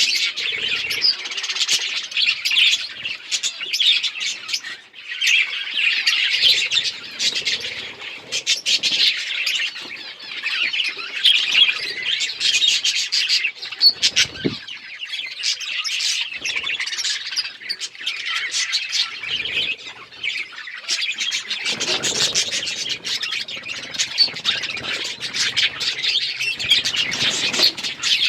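A flock of budgerigars chirping and chattering without a break, many birds calling over one another, with scattered sharp clicks.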